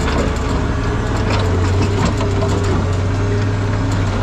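Heavy diesel vehicle engine running with a steady low hum, with rattling and clattering over it.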